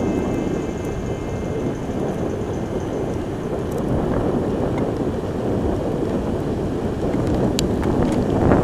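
A steady, loud low noise with no tone in it, and a few sharp clicks near the end.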